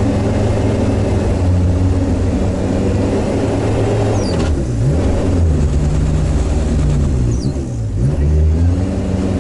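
Sherp all-terrain vehicle's diesel engine, heard from inside the cab while driving, running steadily. A couple of times, about halfway through and near the end, the revs drop briefly and climb back.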